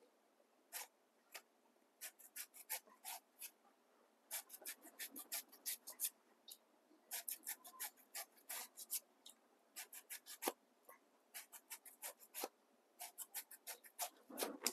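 Sharp two-edged shredding knife shaving a raw banana blossom into fine strips: short, crisp scraping strokes in quick runs of several a second, with short pauses between runs.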